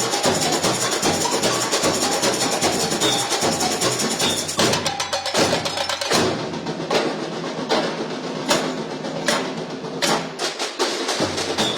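Samba bateria playing: a dense samba rhythm on drums and hand percussion. About halfway through, the low drums drop out briefly and the ensemble plays spaced, accented hits before the full groove returns.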